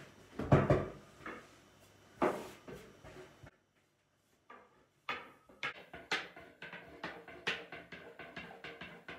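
A thin wooden rolling pin (oklava) working dough on a board: two heavy knocks about two seconds apart, then, after a brief dropout, a quick run of light knocks and clacks, several a second, as the pin rolls the floured dough out into a yufka sheet.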